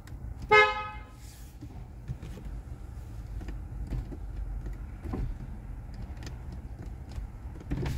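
A single short car-horn beep about half a second in, over a steady low background rumble.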